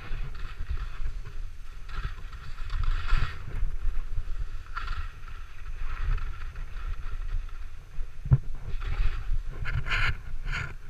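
Wind buffeting the microphone with a steady low rumble, while skis hiss and scrape on snow in bursts every second or two as they turn. There is a single sharp knock about eight seconds in.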